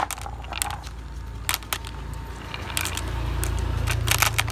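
Glass marbles clicking against one another, the wooden slope and the plastic truck bed as a hand pushes them in, in scattered sharp clicks with a cluster near the end. A low rumble builds underneath in the second half.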